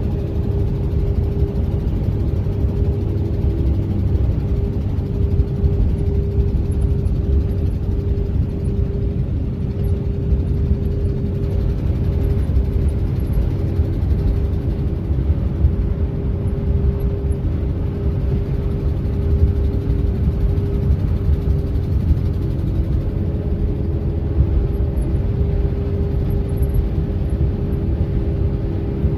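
Steady road and engine noise heard inside a moving vehicle's cab: a continuous low rumble with a constant hum over it.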